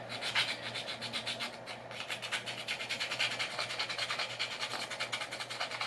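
A hand tool, most likely a file, scraping in quick, even back-and-forth strokes across the flat, shiny base of a GoPro mount. The surface is being roughened to give JB Weld epoxy something to grip.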